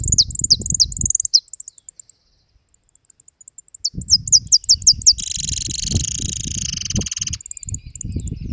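Jilguero finch singing: quick runs of high, falling chirps, then a dense twittering warble from about five seconds in. The phone picks up low rustling and handling noise while the singing goes on.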